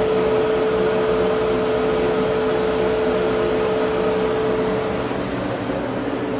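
CNC mill spindle spinning a small drill at steady speed: a steady motor hum with one clear held tone, as the drill point is lined up on the centre mark to set X and Y zero.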